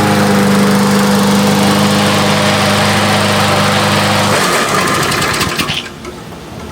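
Gasoline lawn mower engine running steadily at high speed with a loud rushing noise over it, then cutting out about four seconds in, with the rushing noise trailing off over the next second or so.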